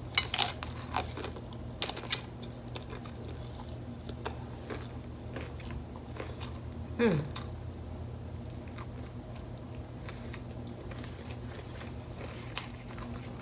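Close-up crunching and chewing of a big bite of crunchy beef taco, with sharp crunches in the first two seconds and quieter chewing after. A short hum-like vocal sound, falling in pitch, comes about seven seconds in.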